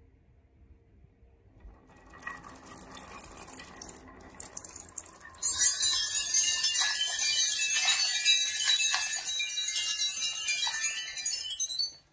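A big batch of marbles rolling and clattering down a wavy wooden marble-run slope. A quiet rolling starts about two seconds in. About halfway through it becomes a loud, dense clatter of marbles knocking against each other and the wood, which cuts off suddenly near the end.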